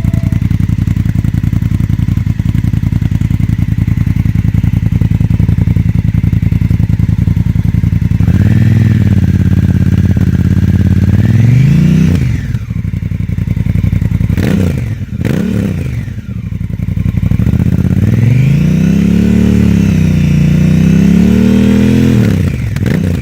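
Honda CRF1100L Africa Twin's parallel-twin engine through an aftermarket Scorpion exhaust, idling steadily for about eight seconds. It is then revved: one held rev, a few quick sharp blips, and a longer wavering rev near the end that drops back to idle.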